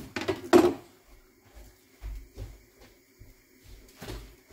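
A few sharp knocks of things being handled on a kitchen counter, the loudest about half a second in, then a few soft low thumps around two seconds in and again near the end.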